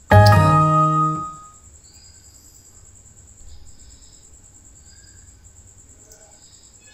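Windows 7 warning chime as a system dialog pops up: a short, bright chord that rings and fades within about a second and a half, followed by faint steady hiss.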